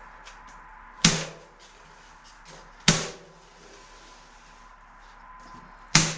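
Three sharp knocks on a wooden frame, spaced about two and three seconds apart, each with a short ringing tail, as material stretched over the potato-curing rack is fastened down.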